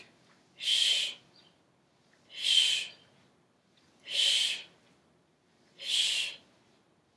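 A person breathing out hard four times in a steady rhythm, about one exhale every second and three-quarters. Each breath out is paced with a rep of a banded glute-bridge exercise, on the knees opening against the resistance band.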